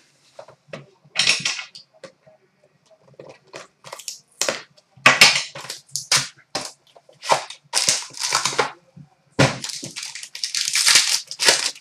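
Clear plastic shrink wrap crinkling and tearing as a sealed trading-card box is unwrapped and opened by hand, in irregular crackly rustles with short pauses between them.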